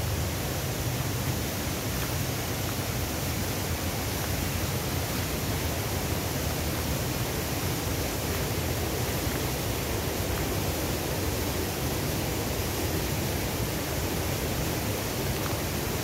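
Steady, even rush of a waterfall and its stream.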